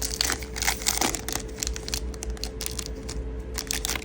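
Foil trading-card pack wrapper crinkling and tearing as it is opened and the cards are handled, in irregular rustles, over a faint steady hum.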